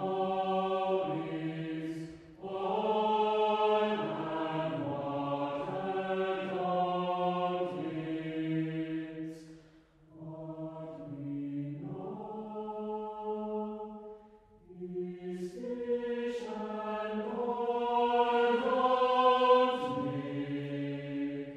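Mixed choir singing unaccompanied, holding sustained chords in several phrases split by short breaks. It swells loudest near the end, then stops.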